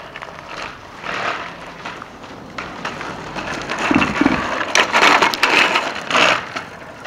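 Children's bicycle with training wheels rolling on asphalt, its small wheels rattling and grinding over the rough surface, louder from about halfway through as it passes close.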